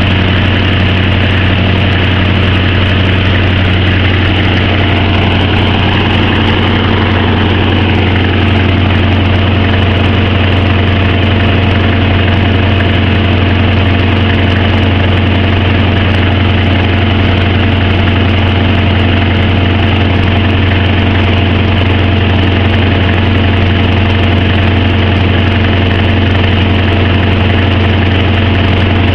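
Diesel-electric locomotive of the TCDD DE24 class idling with a steady low engine drone.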